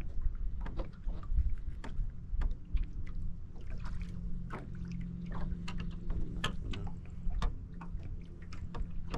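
Small boat on choppy open water: a steady low rumble of wind and water, with many scattered sharp clicks and light knocks throughout.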